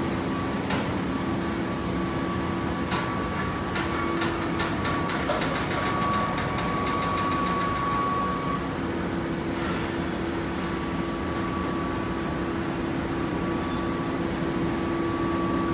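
Hydraulic baler running: a steady humming drone from its motor and hydraulic pump, with a few sharp clicks and a run of quick clicks that speed up in the first half, then a short hiss.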